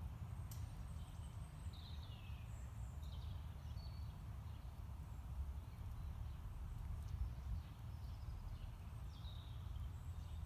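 Wild songbirds calling outdoors: scattered short chirps, several sliding down in pitch, over a steady low rumble.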